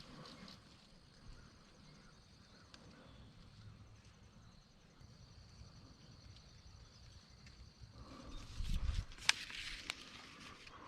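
Faint, steady, high-pitched pulsing insect trill over a quiet field. About eight seconds in there is a spell of rustling, with one sharp click a little after nine seconds.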